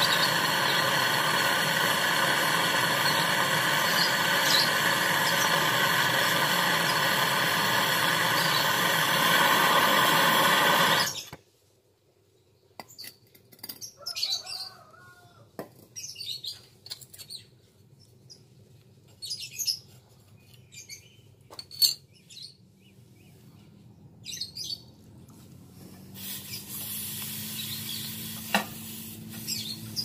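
Portable butane canister torch burning with a steady hiss while brazing a copper pipe joint on a refrigerator compressor, shut off abruptly about 11 seconds in. Faint clicks and small handling sounds follow.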